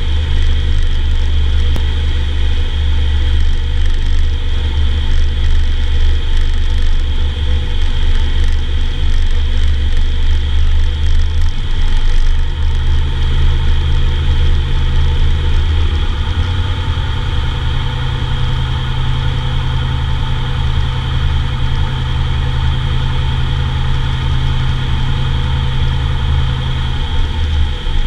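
Cessna 170's six-cylinder piston engine and propeller heard from inside the cabin at reduced power on the landing approach and roll-out, a steady drone with wind noise. The engine note changes a little before halfway and again near the end as the power setting changes.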